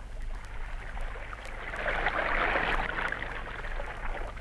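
Sound effect of sea water washing and surging, swelling to its loudest near the middle and then easing off, over the steady hum and faint crackle of an old recording.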